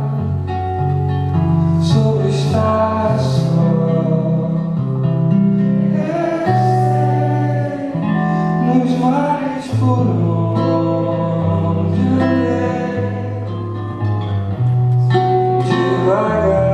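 Solo acoustic guitar (violão) accompanying a man singing a slow song live, the guitar's bass notes changing about once a second under the sung melody.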